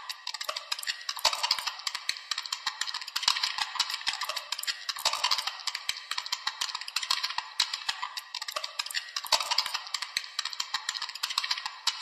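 Rapid, irregular clicking and crackling that swells and eases every second or two, with no steady tone.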